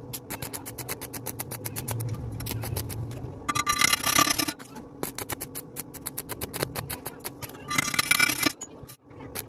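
Stick (arc) welding arc crackling rapidly, with two louder, harsher spells about four and eight seconds in.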